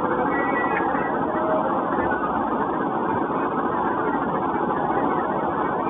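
Steady, even background noise with no distinct knocks or clicks.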